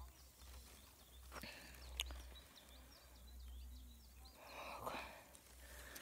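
Quiet outdoor ambience: a low wind rumble on the phone's microphone, with faint high chirps and a brief rustle near the end.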